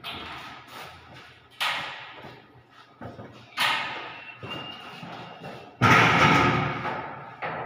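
A door leaf being handled into its frame: three sudden bangs, each fading away, with the loudest about six seconds in.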